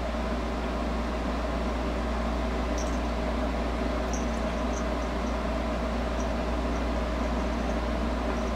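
Steady mechanical hum and hiss of a room appliance, with a few faint soft clicks scattered through it from a cat chewing at its claws.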